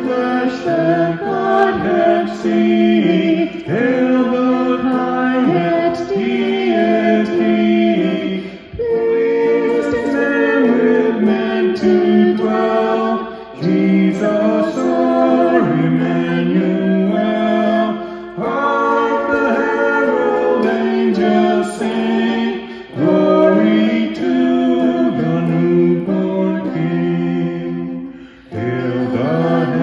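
A man and a woman singing a hymn together in sustained phrases, with electric guitar accompaniment.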